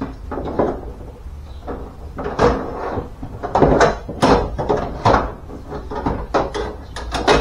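Irregular metal clanks and knocks, a dozen or more of them, as a power window regulator is wrestled out through the access hole of a 1998 Ford Mustang's door, knocking against the door's inner panel.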